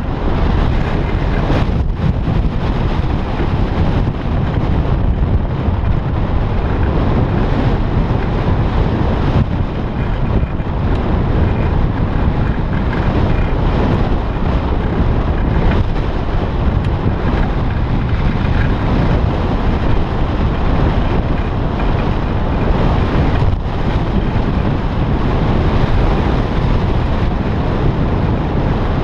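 Steady, loud wind rushing over the camera's microphone on a hang glider in flight, a deep, even buffeting that varies only slightly in strength.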